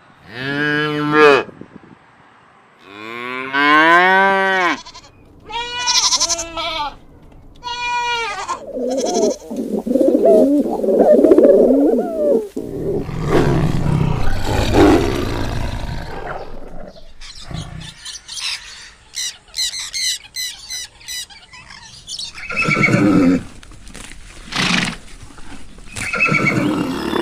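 Cattle mooing: a few separate long moos, some rising in pitch, then a jumble of overlapping calls from several animals, followed by shorter calls.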